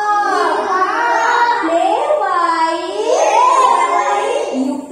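Young children singing a nursery rhyme, held notes that glide up and down in pitch.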